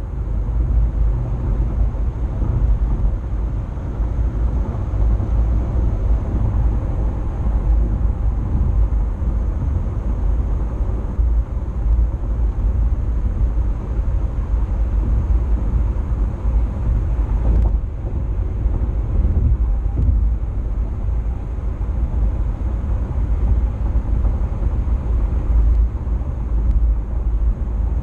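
Car driving on the road: a steady low rumble of road and engine noise, with a single click about eighteen seconds in.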